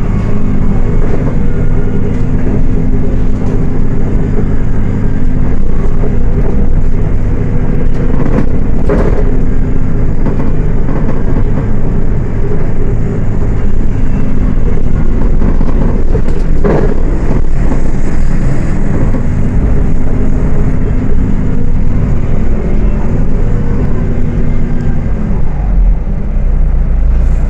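Diesel engine of a Volksbus 18.280 OTS city bus running while the bus is under way, a steady drone whose pitch shifts a few times as it pulls. Two brief noisy bursts cut through it, about a third and about two thirds of the way in.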